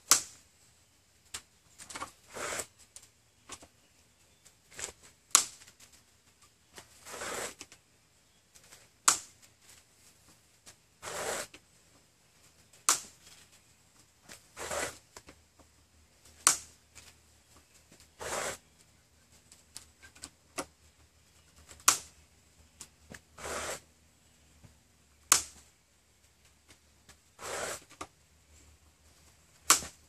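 A 2½-inch wood screw being driven by hand, turn by turn, with the small Phillips screwdriver of a Victorinox Fieldmaster Swiss Army knife. It goes in tight: a sharp click every few seconds, with softer rasping bursts in between.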